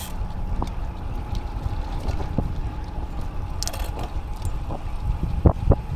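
Wind buffeting the action camera's microphone, with tyre and road rumble from a road bike being ridden, a steady low noise throughout. A few sharp clicks or knocks come near the end.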